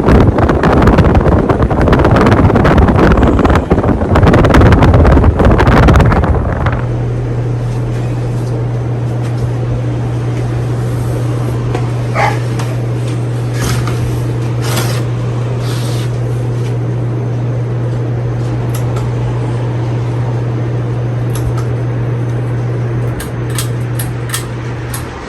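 A 52-inch Gulf Coast Tiara ceiling fan running. For the first six seconds or so, air from the blades buffets the microphone with loud wind noise. After that a steady low motor hum is heard, with a few faint ticks, and it drops away near the end.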